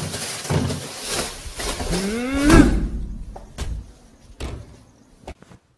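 Plastic trash bag rustling as it is yanked out of a wastebasket, then a rising yell about two and a half seconds in, followed by a few light knocks.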